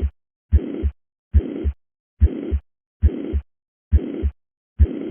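Stethoscope recording of heart sounds at the cardiac apex, about seventy beats a minute. In each beat a low S1 thump is followed by a high-pitched murmur that runs evenly through systole up to the S2 thump. This is the holosystolic murmur of mitral regurgitation.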